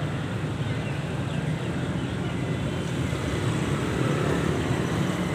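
Steady low rumble of outdoor background noise, with no clear singing.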